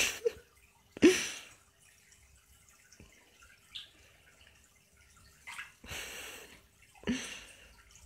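Water plops and small splashes at an aquarium's surface as fish snap at food held in the fingers. There are several separate plops, the clearest about a second in and near the end, and a brief splash just before.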